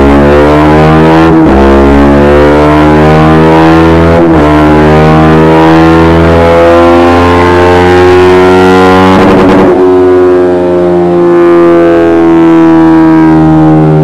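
Honda CBR 125R's single-cylinder four-stroke engine, breathing through a Dominator aftermarket exhaust, accelerating hard through the gears on a dynamometer. The pitch climbs in each gear and drops at three upshifts: about a second and a half in, about four seconds in, and about nine and a half seconds in. Each gear is held longer than the one before.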